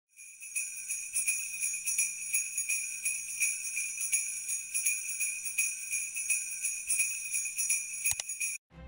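Jingle bells shaken in a steady rhythm, about three shakes a second, their bright ringing held throughout and cutting off abruptly near the end.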